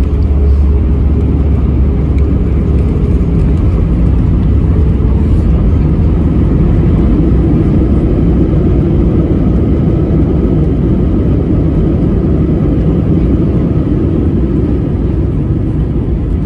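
Airbus A320-200 cabin noise: a loud, steady low rumble of the jet engines and airframe heard from inside the passenger cabin, heaviest in the first few seconds.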